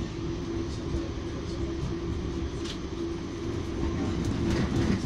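Interior noise of an Auckland electric multiple-unit train carriage under way: a steady low rumble with a constant hum over it and a few faint ticks.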